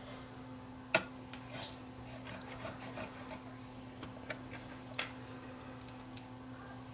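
Small clicks and taps of hands handling parts of an opened CD changer mechanism and a glue bottle, the sharpest click about a second in, over a steady low hum.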